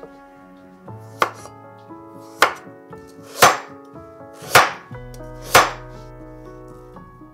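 Large kitchen knife slicing a carrot on a wooden cutting board: five sharp chops about a second apart, with background music underneath.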